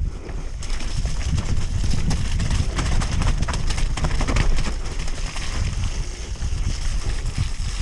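Mountain bike descending a rough, rocky trail: a dense, irregular clatter of tyre, chain and frame knocks over a steady low rumble.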